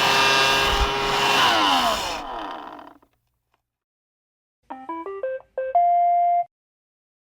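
iRobot Roomba robot vacuum running, its motors winding down and stopping after about two seconds. After a short pause it plays a quick electronic tune of rising beeps ending on a held tone, the chime it gives on reaching its dock.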